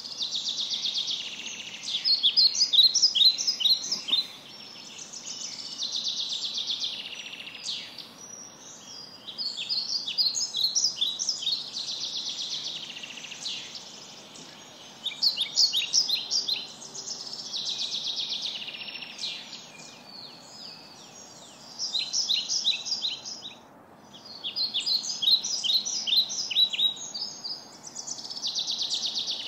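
Birds singing: high phrases of rapid notes and trills, one after another every couple of seconds.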